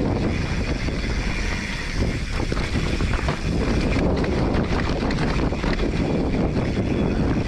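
Wind buffeting the microphone over the rumble of a Polygon Siskiu T7 full-suspension mountain bike's tyres on a dirt singletrack descent, with a steady clatter of small knocks as the bike rides over bumps.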